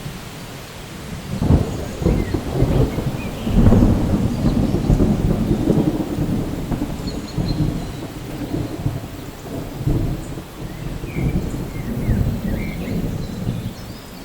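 Steady rain with a long, rolling roll of thunder that swells about a second and a half in, is loudest around four seconds, and keeps rumbling in waves.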